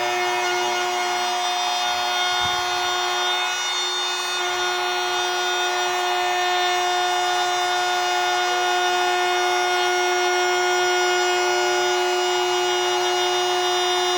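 Power tool motor running steadily with a constant high-pitched whine.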